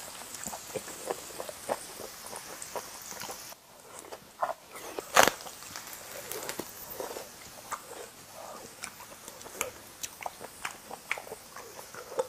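A person chewing and biting food, a run of short wet clicks and smacks. A grill sizzles underneath for the first few seconds and then stops suddenly. One sharp click about five seconds in.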